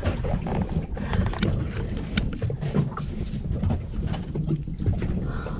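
Speedboat at sea: wind buffeting the microphone over boat and water noise, with a few sharp clicks.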